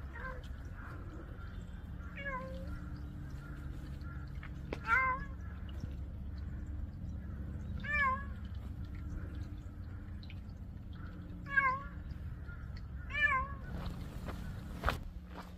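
Free-roaming white-and-tabby cat meowing: about six short meows a few seconds apart, over a steady low rumble. A single sharp click comes near the end.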